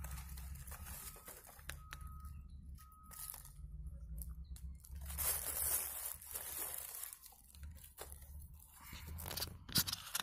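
Dry leaf litter and twigs rustling and crackling as a hand pushes through the forest floor undergrowth to reach wild mushrooms, over a low steady rumble. The rustling grows denser about five seconds in, with a few sharp snaps near the end.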